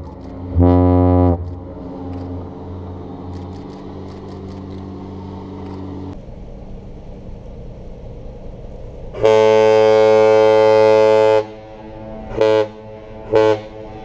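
Great Lakes freighter's horn: a short blast about half a second in, then, after a pause, one long blast and two short ones, the master's salute. A low steady rumble runs underneath.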